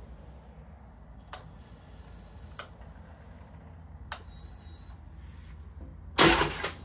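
Motorcycle handlebar control switches clicked on and off twice, each press followed by its release about a second later, with a faint high whine while each is held on, over a low hum. Near the end comes a loud brief burst of noise.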